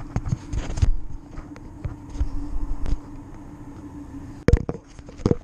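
Rustling, clicks and knocks of hands untying the cords that hold up a van's bed, with a steady low hum underneath. Two heavy thumps come near the end, about a second apart.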